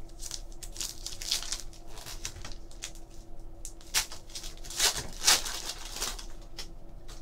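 Foil wrapper of a Topps Chrome trading card pack being torn open and crinkled by hand: irregular crackling rustles, loudest about four seconds in and again about a second later.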